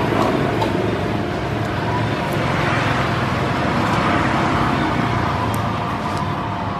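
Steady engine-like background noise of a motor or vehicle running, swelling a little a few seconds in, with a faint steady hum under it.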